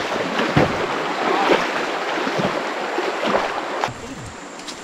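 Shallow river water rushing over stones, with irregular splashes every half second or so. The sound drops in level about four seconds in.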